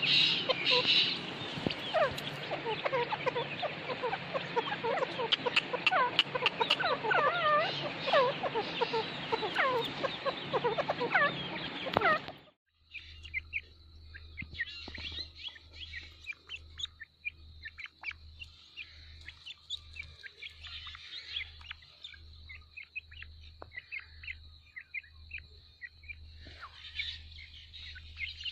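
Grey francolin chicks and adult calling: many short, quick chirps rising and falling in pitch. About twelve seconds in, the sound cuts to a much quieter stretch of scattered chirps over a steady high whine.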